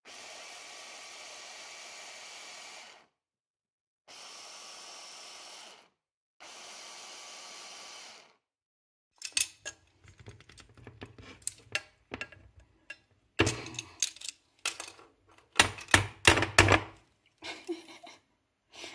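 Electric mini chopper grinding cashew nuts to a fine powder in three steady pulses, the first about three seconds long and the next two about two seconds each. Then a spoon knocking and scraping against a stainless steel saucepan as solid coconut oil is scooped in, a run of irregular clunks that are louder than the motor.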